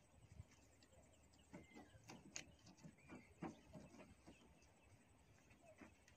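Near silence: faint outdoor background with scattered soft clicks and a few short, faint chirps.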